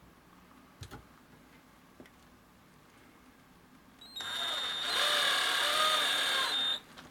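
Cordless drill-driver with a socket bit screwing a metal stud into a rubber shoe sole. After a couple of light clicks, the drill runs for about two and a half seconds, its pitch dipping and rising, then stops suddenly.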